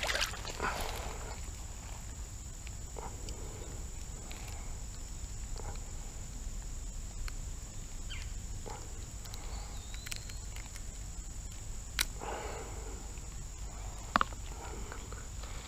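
A hand splashing into shallow river water to grab a small smallmouth bass, then faint scattered handling noises as the jig is worked out of its mouth, with two sharp clicks near the end. A steady high-pitched hum runs underneath.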